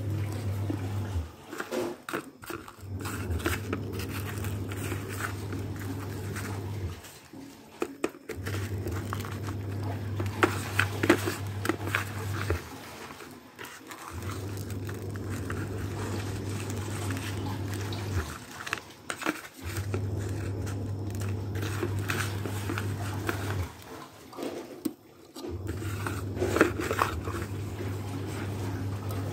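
Hands mixing fish with toasted, pounded rice in a bowl: irregular crunching and rustling of the rice grains. Underneath is a steady low hum that breaks off briefly every few seconds.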